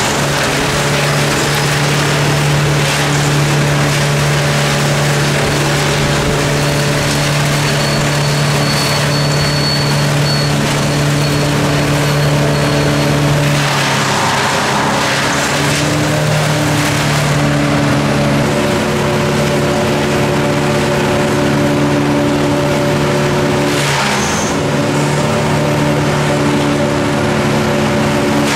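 An engine-driven machine running steadily, its pitch stepping down and back up a few times, with short rushes of noise about halfway through and again later.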